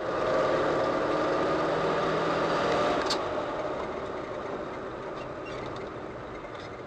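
A car's engine running with tyre and road noise as the car drives along, heard from inside the cabin by its dashcam. The sound is steady and eases slowly quieter, with a short high tick about three seconds in.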